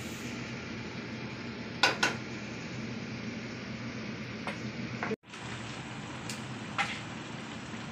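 Kitchenware clinking: two sharp clinks about two seconds in and a few lighter ones later, over a steady background hiss with a low hum. The sound drops out briefly a little after five seconds.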